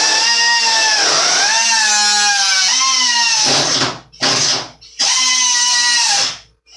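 Air-powered cut-off tool cutting through the sheet-metal top of a steel cabinet: a high whine with a strong air hiss, its pitch sagging and recovering as the wheel bites into the metal. It stops about three and a half seconds in, then runs in two short bursts before stopping again.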